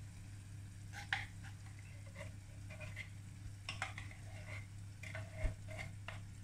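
Baked beans sliding out of a tin can into a saucepan, with scattered light metal clicks and scrapes at the tin and a single knock about five and a half seconds in.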